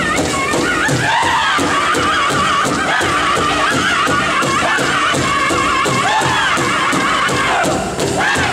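Powwow drum group singing a men's chicken dance song: several men's high-pitched voices in unison over a steady beat struck together on one large shared bass drum. There is a brief dip in loudness near the end.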